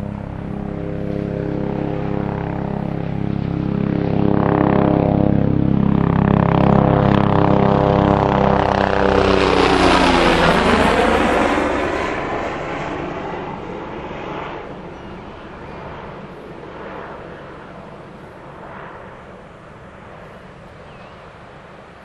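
Propeller airplane flying overhead: its engine drone grows louder, drops sharply in pitch as it passes about ten seconds in, then fades away.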